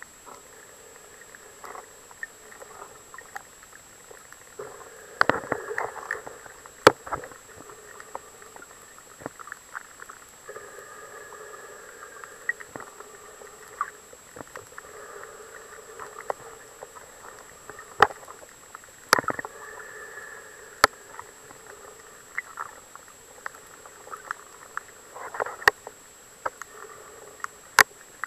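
Underwater sound picked up by a waterproof camcorder's microphone: a muffled, hollow hiss with scattered sharp clicks and crackles, a few of them loud. A faint steady high tone runs under it all.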